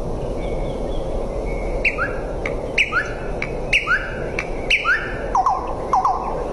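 A bird calling repeatedly, about once a second, starting about two seconds in: each call a sharp, quick high note followed by a lower short note, with lower doubled notes near the end, over a steady background hiss.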